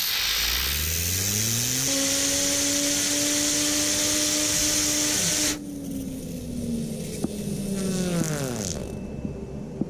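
Compressed-air blow gun hissing as it blasts a fidget spinner up to speed. The spinner's whine rises in pitch over the first two seconds and holds steady. When the air cuts off about five and a half seconds in, the whine falls away in pitch as the spinner slows down, with a small click partway through.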